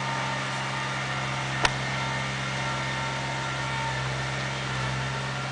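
Steady low hum, with one sharp click about a second and a half in.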